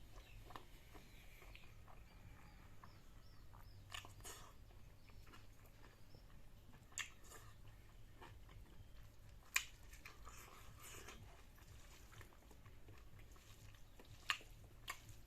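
A person quietly chewing a mouthful of food, with a few sharp clicks scattered through.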